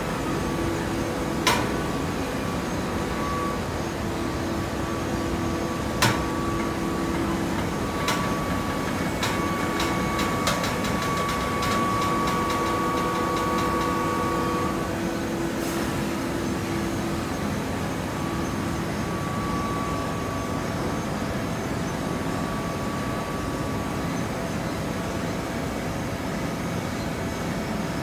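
Full-automatic hydraulic horizontal hay baler running, its pump and motor giving a steady hum that changes about halfway through. Several sharp metallic clacks come in the first half, with a burst of rapid ticking in the middle.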